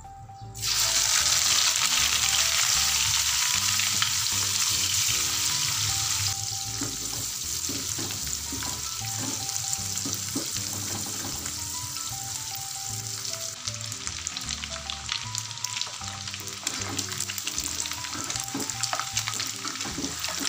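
Small dried anchovies dropped into hot oil in a wok: a loud sizzle breaks out about half a second in and eases after about six seconds into steady crackling frying. A metal spatula stirs and scrapes the fish around the pan.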